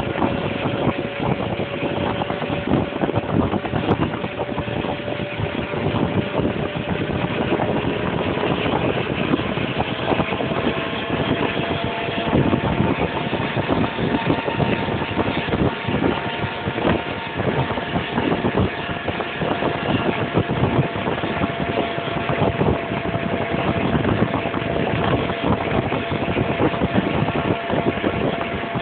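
Daimler Ferret armoured scout car driving along a road, heard from on top of the hull: its Rolls-Royce B60 straight-six petrol engine and running gear make a loud, steady drone. A faint whine in the drone rises slightly in pitch about ten seconds in.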